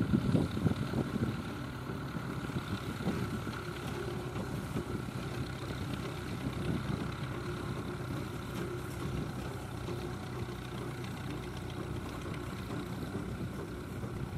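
Deutz D5006 tractor's air-cooled three-cylinder diesel engine running steadily while pulling and driving a round straw baler. It is louder for about the first second, then holds an even note.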